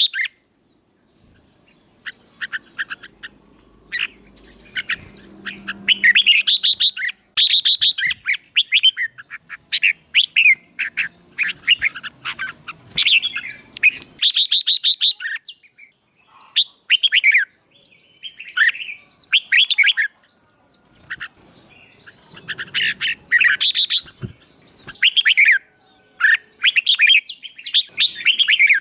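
Songbird singing competition-style song: rapid bursts of chirps and trills in short phrases with brief pauses, used to provoke a newly caught bird into singing.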